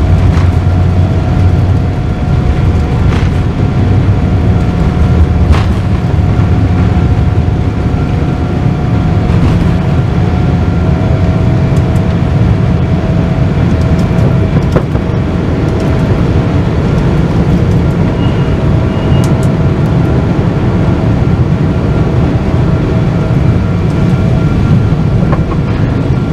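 Steady, loud roar of engines and rushing air heard inside the economy cabin of a Boeing 777-200ER as it climbs after takeoff. A faint steady whine runs through it.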